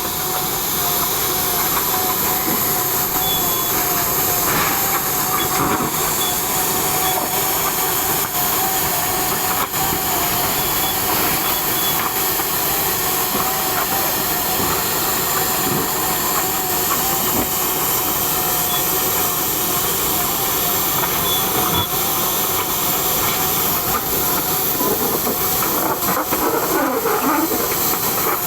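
Machine running steadily: a loud, even hiss with a constant whine held throughout.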